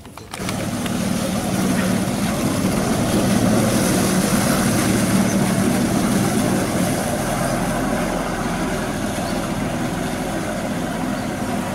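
Homemade jet ski's engine running under way across the water, a steady hum that sets in suddenly about half a second in and eases slightly toward the end as it pulls away.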